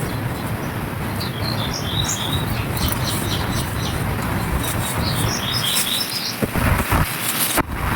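Dry clay chunks crumbling and crushing with a continuous gritty rustle, louder near the end. Birds chirp in the background in two short runs.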